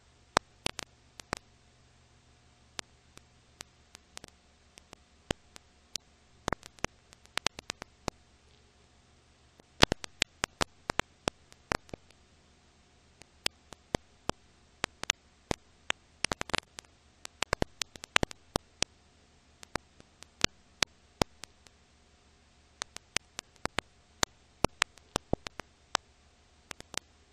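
Irregular sharp clicks and pops, a few a second, over a faint steady hiss and hum: the surface crackle of an old silent-film transfer.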